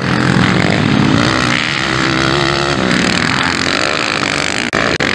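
Motocross bike engines revving hard, their pitch rising and falling as the riders accelerate and back off over the track's jumps. The sound drops out briefly twice near the end.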